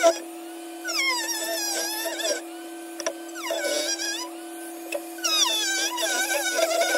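A handheld rotary tool of the Dremel type, fitted with a small cutting disc, runs with a steady high whine while cutting a plastic dirt-bike fender. Three times, for a second or two each, its pitch sags and recovers as the disc bites into the plastic.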